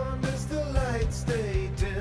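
Background music: a song with a singing voice over guitar and a regular drum beat.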